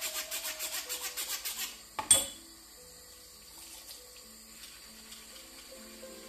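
Small bottle brush scrubbing inside a hookah part in quick back-and-forth strokes, about five a second, stopping just under two seconds in. A single sharp knock follows, then faint background music.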